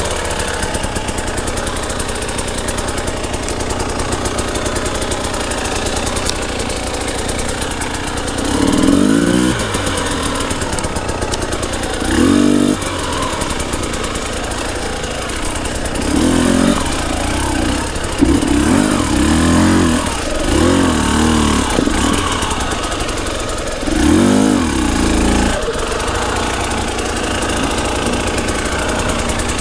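Fuel-injected two-stroke dirt bike engine, a 2018 KTM 300 TPI, running at low throttle. The throttle is opened in short bursts several times, with a longer run of them in the middle.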